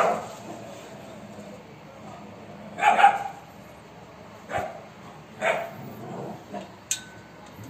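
Street dogs barking during a fight: about five separate barks, a second or two apart, the loudest about three seconds in.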